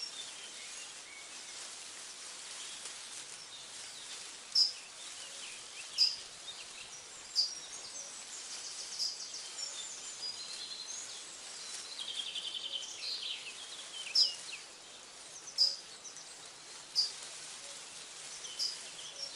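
Birds chirping in a forest: one bird repeats a short, sharp high call about every second and a half, and another gives a quick rapid trill midway, over a steady background hiss.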